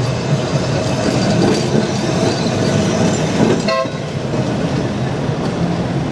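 Blackpool Brush Car single-deck tram running past on street track, its motors humming and wheels rolling on the rails. A short horn toot sounds about three and a half seconds in.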